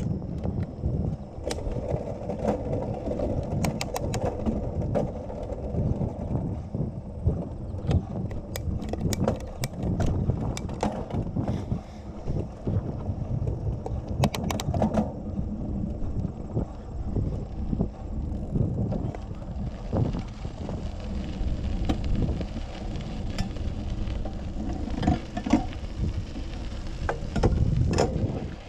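Bicycle being ridden on a paved path: a steady low rumble of riding, with many sharp clicks and rattles from the bike scattered throughout.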